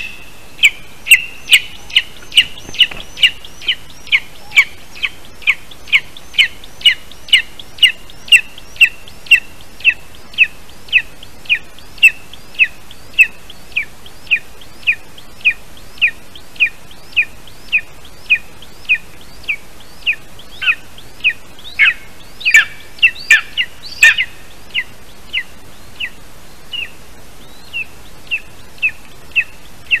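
Lesser spotted eagle calling in a long series of short, high notes, each dropping in pitch, repeated about twice a second. For a few seconds past the middle the calls crowd together and get louder, then they come more sparsely.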